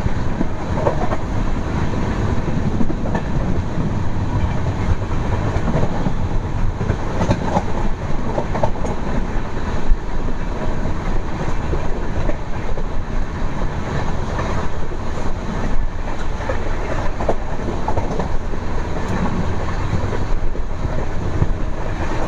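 Passenger train running: a steady rumble of coach wheels on the track, with scattered clicks and one louder knock about ten seconds in.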